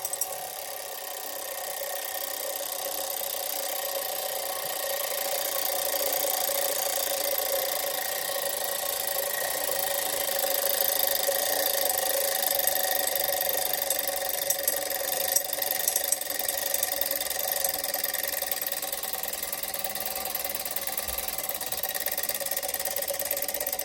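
Landau wind-up alarm clock's alarm going off: the hammer beats rapidly and steadily against the bell, giving a continuous buzzing, rattly ring. It is not ringing properly, which the owner puts down to the bell being screwed on too loose or too tight.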